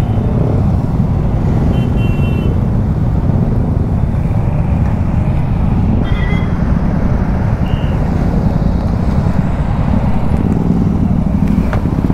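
Royal Enfield Meteor 350's single-cylinder engine running steadily while riding, under a constant low rush of road and wind noise.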